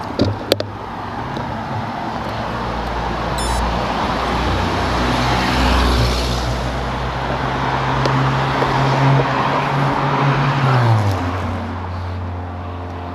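Road traffic: motor vehicles passing on the road, their noise swelling and fading, with a low engine drone that drops in pitch near the end. A few sharp clicks right at the start.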